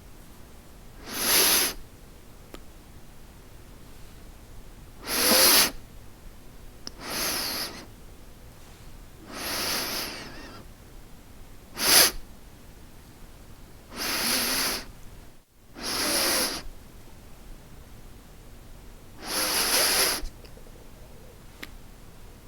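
A person sniffing through the nose, eight separate sniffs a second or more apart, most lasting about half a second to a second and one short, sharp sniff near the middle.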